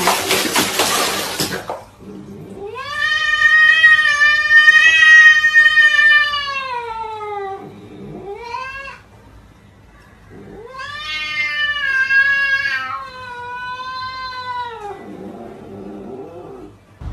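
Cats yowling: long drawn-out wailing calls that slide down in pitch at the end, two long ones with shorter calls between and after. It opens with about two seconds of loud hissing noise.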